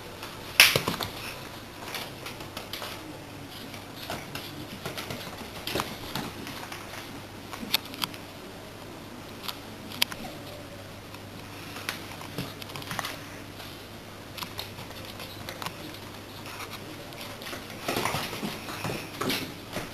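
Belgian Malinois puppy at play: scattered clicks, taps and knocks, with one sharp knock about half a second in and a flurry of them near the end.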